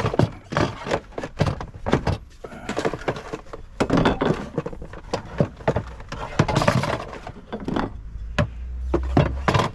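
Tools and storage cases being handled and shifted about on van racking: a run of irregular knocks and clatters.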